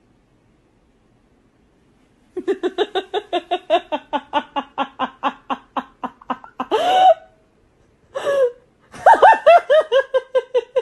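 A woman laughing hard in a long run of quick ha-ha pulses, about six a second. Two short higher cries break it up midway, and near the end comes a fast burst of laughter that falls in pitch.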